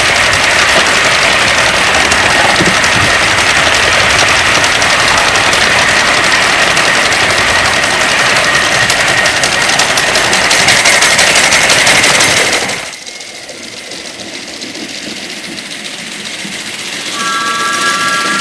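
A 5-inch gauge live-steam model of an LNER A4 locomotive running along the track with a loud, steady hiss and rattle, which drops away abruptly about thirteen seconds in. Near the end a brief, steady three-note chord sounds.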